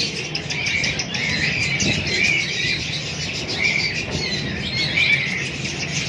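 Many caged birds chirping at once, a continuous chorus of short, high chirps.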